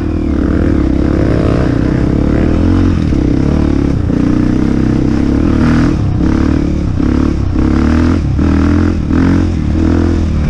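Dirt bike engine running under changing throttle while riding a trail, with several short breaks in the engine note in the second half.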